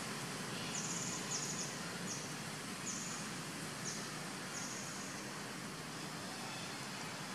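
Forest ambience: a steady hiss with a run of short, high-pitched chirps, about six in the first five seconds.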